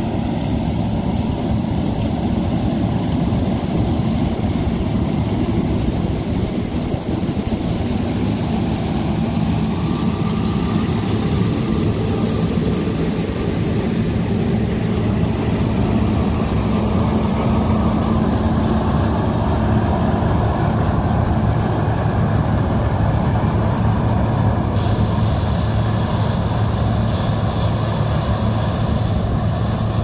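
New Holland CR8.90 combine harvesting corn, with a tracked tractor pulling a grain cart alongside: heavy diesel engines and machinery running at a steady, loud, even hum.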